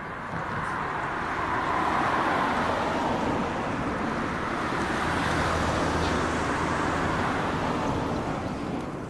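Twilight Express Mizukaze train, a JR West 87-series diesel-electric hybrid, running past close by with a steady rumble of wheels and running gear that eases slightly near the end.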